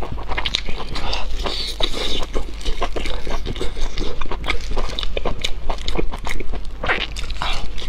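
Close-miked eating sounds: a person chewing and biting soft meat, with many quick mouth clicks and smacks following closely on one another.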